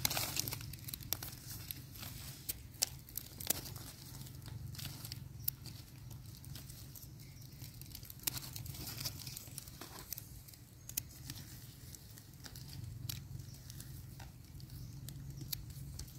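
Dry leaf litter crackling and rustling, with scattered small clicks and scrapes, as wild mushrooms are picked from the ground and their stems trimmed with a small knife.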